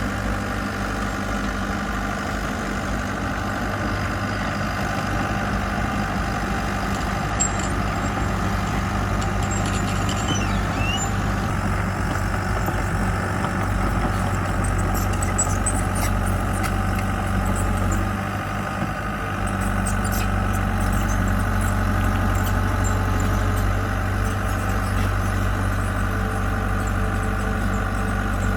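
Diesel engine of heavy earthmoving equipment running steadily, easing off briefly about two-thirds of the way through.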